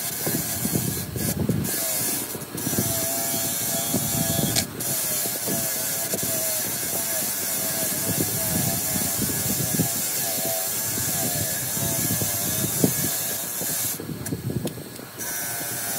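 Bench grinder running with a starter-motor armature's shaft and pinion end held against its spinning wheel: a steady grinding noise with a wavering hum, which breaks off briefly a few times, longest about a second before the end.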